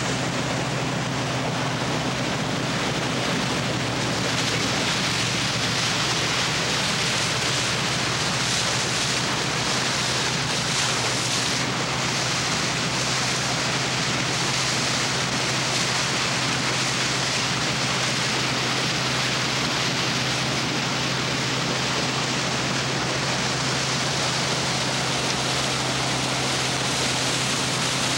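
Boat engine running steadily under way, with a constant rush of water and wind noise over it.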